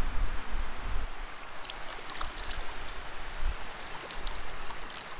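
Creek water running steadily, with small splashes and trickles as hands rinse trout fillets in the shallow water. Wind rumbles on the microphone in about the first second.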